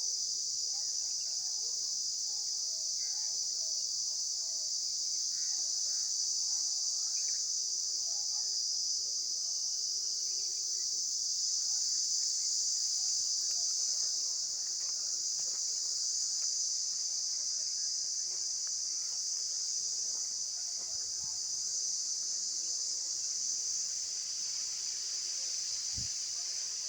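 Insects calling in a steady, unbroken high-pitched chorus.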